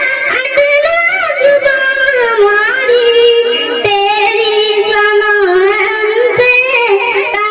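A girl's high voice singing a hamd (Urdu devotional hymn), drawing out long held notes that slide and waver in pitch.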